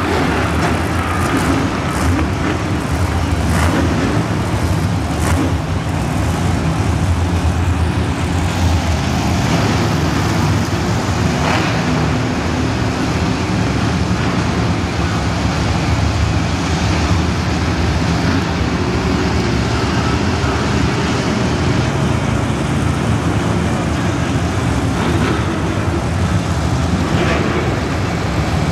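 Monster trucks' supercharged V8 engines running loudly and steadily across a stadium floor, several trucks at once.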